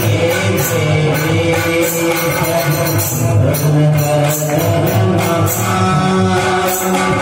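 Live devotional kirtan music: held pitched tones over a steady beat of drum and jingling tambourine-like percussion.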